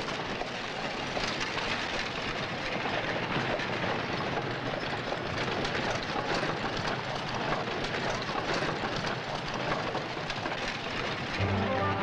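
Horse-drawn wagons rolling past on a dirt street: hooves clopping and wooden spoked wheels and harness rattling in a dense, steady clatter. Music comes in near the end.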